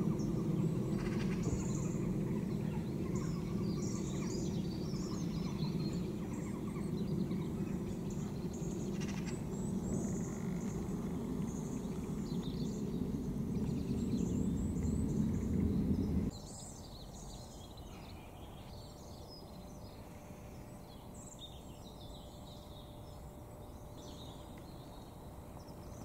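Steady low rumble of a Boeing 757 freighter passing high overhead, with small birds chirping. The rumble cuts off suddenly about two-thirds of the way through, leaving only the birdsong.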